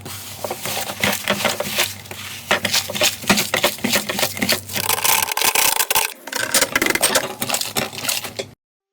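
Slime being squeezed and poked by hand, a dense run of sharp crackles and clicks with some wet rubbing, cutting off suddenly near the end.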